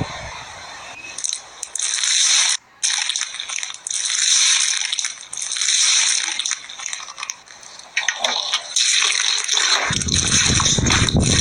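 Slime being squished and pressed, a wet, crackly clicking and popping that swells and eases in waves of a few seconds. A low-pitched noise joins near the end.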